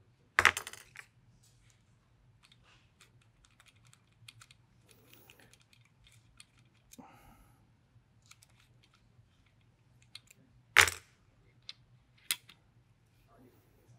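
Small metallic clicks and light ticks from a hex key and the metal parts of an FX Maverick air rifle's action being handled, with one sharp click that rings briefly about half a second in and two more sharp clicks near the end.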